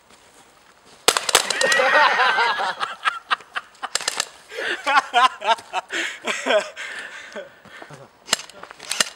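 Airsoft pistols firing at close range: a sharp shot about a second in, then scattered shots and clicks, with two more cracks near the end. Men yell loudly in between as the BBs hit and sting.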